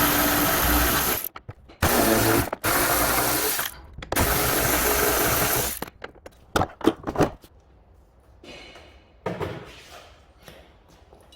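Power drill running in four bursts of one to two seconds each, followed by a few sharp metallic clicks, then quiet handling noise.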